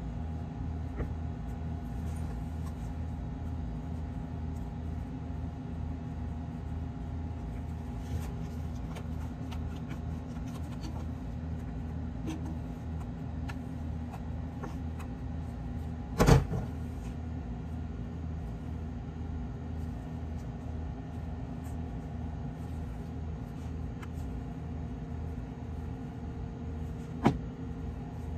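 Steady low mechanical hum, with a loud sharp knock about halfway through and a smaller click near the end.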